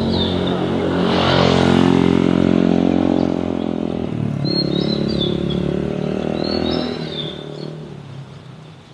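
A motor vehicle's engine passing close by, loudest about two seconds in and fading away over the last few seconds. Birds chirp a few times.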